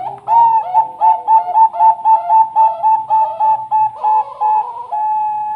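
Perkutut bangkok zebra dove cooing: a rapid series of short, clear notes, about four a second, ending in one longer held note near the end.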